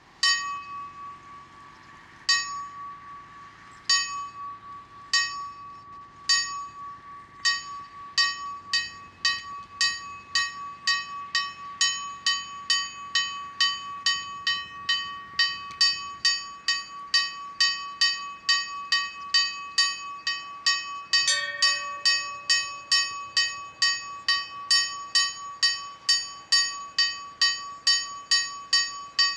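Bronze church bells chiming a Maltese festa peal, rung before the feast-day High Mass. One small bell is struck again and again, slowly at first and quickening to about two strokes a second, its ringing carrying on between strokes. A single stroke of a lower bell comes about two-thirds of the way through.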